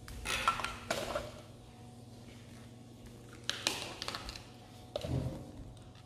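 Light clicks and clatters of hard plastic toy cleaning-set pieces being handled and knocked on a tiled floor. They come in a few short clusters: right at the start, around four seconds in, and again near five seconds.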